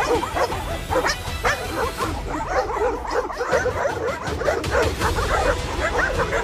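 Several dogs barking and yipping over one another in a rapid, overlapping chorus that keeps up throughout.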